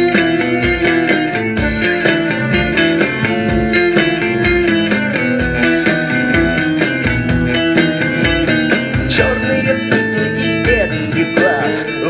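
Alternative rock song played back from a vinyl LP on a turntable: an instrumental stretch of guitars over a steady drum beat, without vocals.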